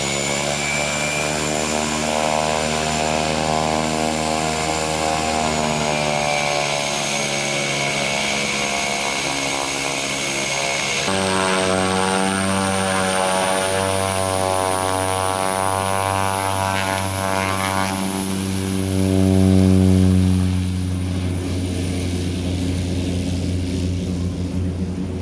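Cessna Grand Caravan's single Pratt & Whitney PT6A turboprop running: a steady high turbine whine over the propeller's even, many-toned hum, its pitch shifting as the power changes, with a sudden change in tone about eleven seconds in. It swells to its loudest around twenty seconds in, then fades as the aircraft moves away down the strip.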